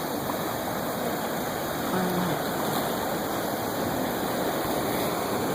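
Ocean surf washing in, a steady rushing of breaking waves.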